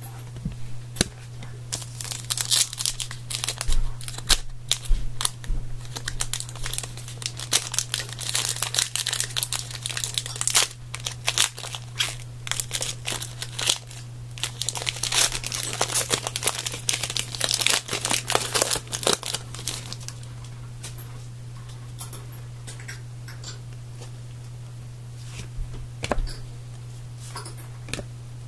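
Crinkling and tearing of plastic or foil card packaging as trading cards are handled, busiest for the first two-thirds and then thinning to occasional crackles, over a steady low electrical hum.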